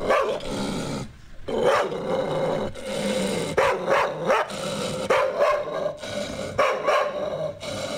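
Small dog barking in a quick, irregular run of barks, amplified through a sound system's loudspeakers.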